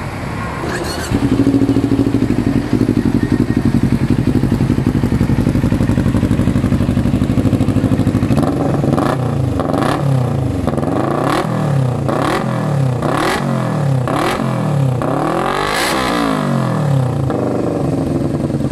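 Two-cylinder motorcycle engine catching about a second in and idling steadily, then revved in a run of about eight quick throttle blips, each rising and falling in pitch, the highest near the end, before settling back to idle.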